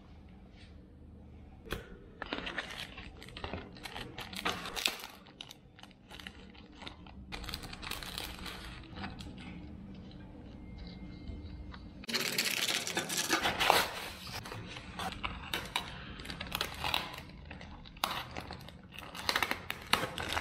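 Plastic packaging being handled: crinkling and rustling with tearing and scattered light clicks, loudest about twelve seconds in.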